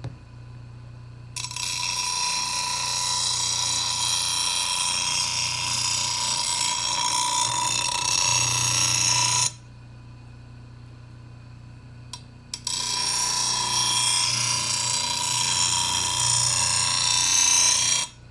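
A steel lawnmower blade being ground on a running grinder's stone wheel to clean up its edge: two long passes of hissing grind with a steady whine, about eight and five seconds long. The grinder motor hums on its own between the passes.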